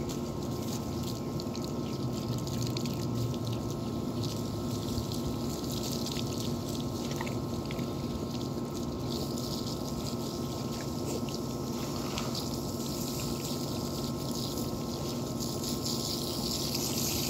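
Water from a garden hose spraying and splashing over a dog's wet coat and into a plastic tub, the spray getting louder in the second half. A steady low mechanical hum runs underneath.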